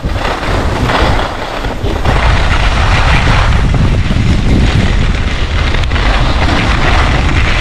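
Wind rumbling and buffeting the microphone during a fast descent down a ski slope, with the steady hiss and scrape of sliding over packed snow.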